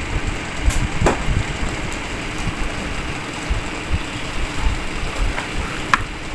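A person chewing food close to the microphone, heard as irregular low thuds over a steady background hum. A couple of sharp clicks fall about a second in and near the end.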